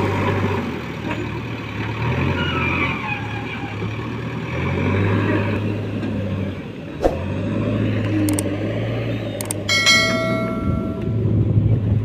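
Diesel engines of a JCB backhoe loader and a Tata tipper truck running, the low drone swelling and dipping as the loader works, with a whine gliding in pitch in the first few seconds. Near the end come a few sharp clicks and a short bell-like ding.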